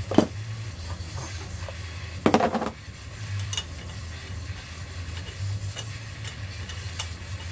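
Metal tools and parts clinking as they are handled: one sharp clink just after the start and a short rattle about two seconds in, over a low steady hum.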